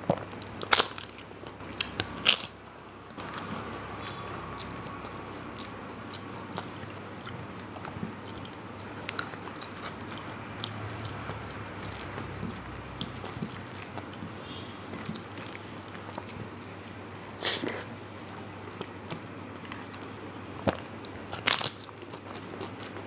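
Close-miked eating: a mouthful of rice with dal and curry being chewed, with a few sharp clicky bites, about a second in, at about two seconds, and twice near the end, over a steady low hum.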